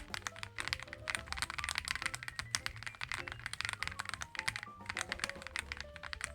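Fast, continuous typing on a Reborn67 gasket-mounted mechanical keyboard, many keystrokes a second with a brief break about two-thirds through, over background music.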